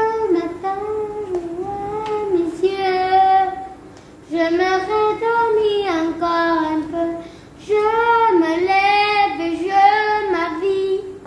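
A boy singing a song unaccompanied, in three phrases of long held notes with brief pauses for breath between them.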